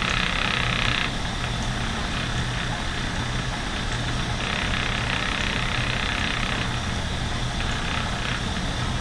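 Lendrum spinning wheel running fast with its small high-speed flyer, a steady whir with a low hum while fine yarn is spun. A brighter hiss swells near the start and again about four to six seconds in.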